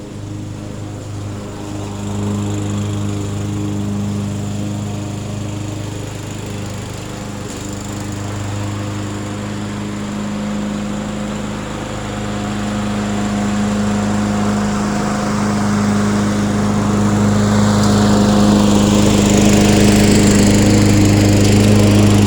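Murray self-propelled 22-inch walk-behind lawn mower's small engine running steadily while mowing, growing louder over the last several seconds.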